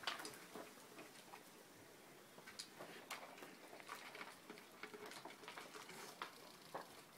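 Faint, irregular clicks and ticks of dogs eating kibble from plastic puzzle and slow-feeder bowls, a few light taps a second with a slightly sharper one at the start.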